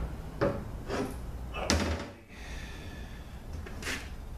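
Three short knocks of metal on a workbench as the just-removed oil pump of a ZF5HP24 automatic transmission is handled and set down, the loudest about 1.7 seconds in.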